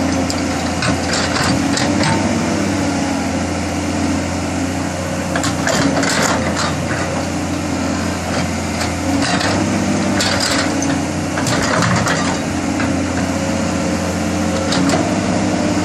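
Caterpillar 315C hydraulic excavator's diesel engine running steadily while the bucket digs, with irregular scraping and clattering of dirt and stones.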